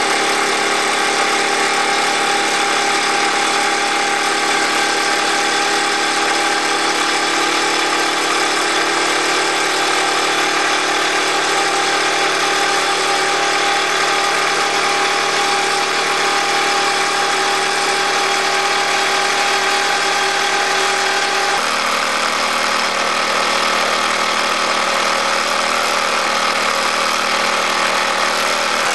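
Wilesco D28 toy steam engine running steadily under steam, its flywheel belt-driving a small 9-volt generator: a continuous mechanical running sound with several steady whining tones. The tones shift abruptly about three-quarters of the way through.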